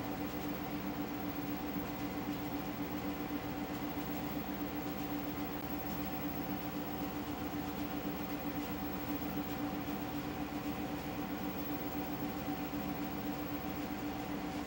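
A steady hum and hiss that does not change: one constant low tone and a fainter higher one over an even haze of noise.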